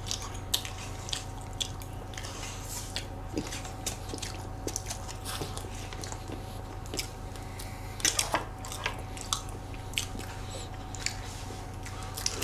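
Close-miked eating sounds: soft chewing of banana crumble chiffon cake and small clicks of metal forks against the cake trays, with a short cluster of louder clicks about eight seconds in. A steady low hum sits underneath.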